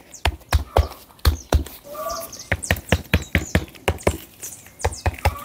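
A rubber mallet knocking a plastic bucket lid down onto its rim in a rapid, uneven run of strikes, about three or four a second with short pauses. The lid is being seated so the fermenting bokashi compost inside is sealed airtight.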